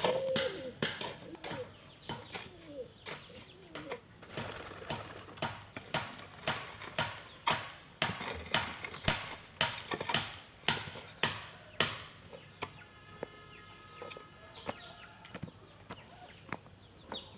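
A hoe blade chopping into loose earth, about two strikes a second. The strikes stop about twelve seconds in, giving way to quieter scraping and shuffling.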